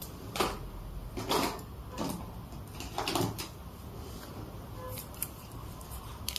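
Brush and ceramic paint dishes knocking and scraping while scarlet and goose-yellow Chinese paints are mixed: four short scrapes in the first few seconds, then a few faint clicks near the end.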